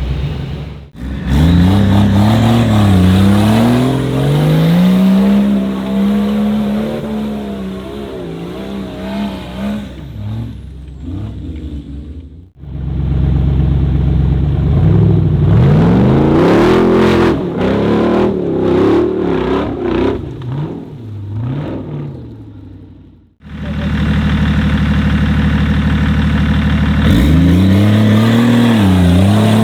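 Off-road 4x4 engines revving hard, the pitch rising and falling again and again. The sound comes in separate stretches broken by abrupt cuts, with a burst of clatter in the middle stretch.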